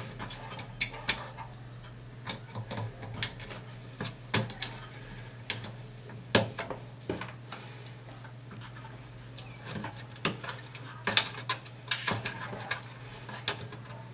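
Small plastic wire connectors clicking and tapping as the CCFL backlight lamp leads are handled and plugged into the TV's inverter board on its metal chassis: irregular short clicks, a dozen or so, over a steady low hum.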